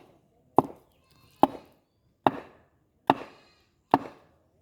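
Steady chopping into wood: five sharp, evenly spaced blows a little under a second apart, the work of building a raft.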